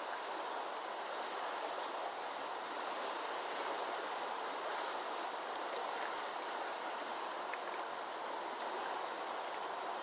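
Steady rush of a flooded creek's running water.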